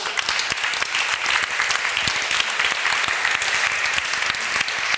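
Audience applauding, a steady dense clapping by many people that fades out shortly after.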